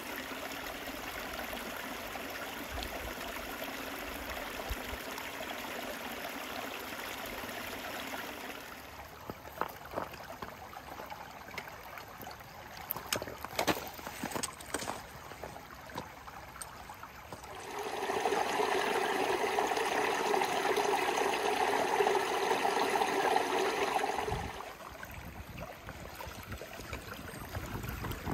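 Shallow, rocky creek babbling steadily over stones. It grows louder for several seconds past the middle. In the quieter stretches between, a few sharp clicks and knocks sound.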